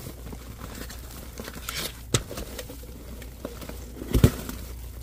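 Plastic bags and wrapped packages rustling and crinkling as someone rummages through a dumpster full of trash, with scattered knocks, a sharp click about two seconds in and a heavier thump a little after four seconds.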